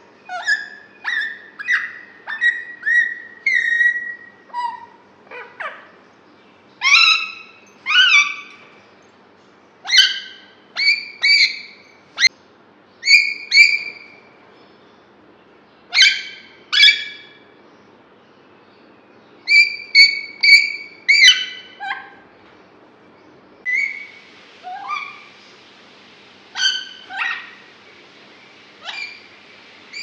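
Alexandrine parakeet calling: short, sharp calls, many falling in pitch, given in quick groups of two to four with short pauses between.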